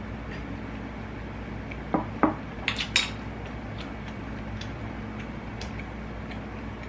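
Brief clatter of tableware being handled: two knocks followed by a quick run of sharp clinks, about two seconds in.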